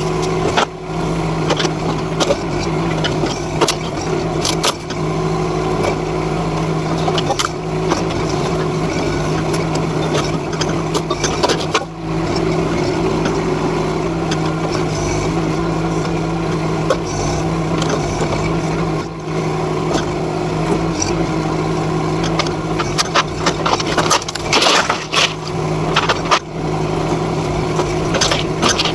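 NT18K mini excavator's engine running steadily under work, with repeated clanks, bangs and rattles as the bucket tears at a shed of wood and corrugated sheet metal. A quick run of clanks comes near the end.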